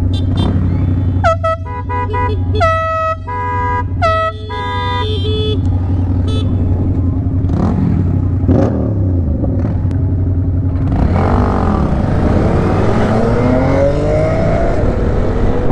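An air horn fitted to a Honda Grom sounds three or four short blasts in the first five seconds, over the small motorcycle engine idling. From about eight seconds in, the engines rev up and down as the bikes ride off.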